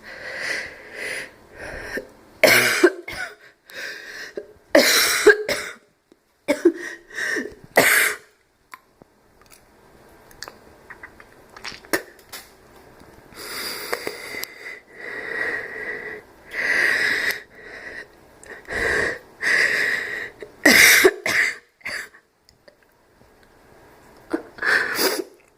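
A person's slight barking cough: sharp coughs in the first eight seconds and again near the end, with a run of wheezy breaths between them, a whistling tone running through the breaths.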